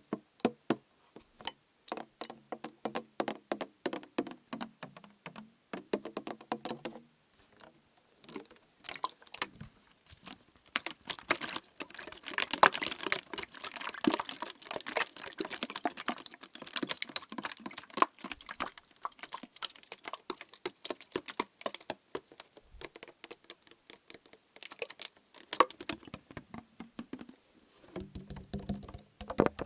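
Rapid tapping and scratching on a plastic bottle partly filled with liquid, the taps ringing with a low hollow tone at first. In the middle the tapping grows denser and louder, with the liquid sloshing inside.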